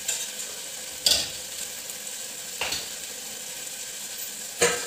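Tomatoes and chillies frying in a pan with a steady sizzle, while a spoon stirs them and clatters against the pan four times.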